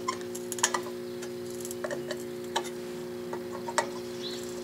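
Scattered light clicks, a few per second or fewer, from a set screw being tightened to force a curved sheet-metal strip up against a plate before tack welding. A steady hum runs underneath.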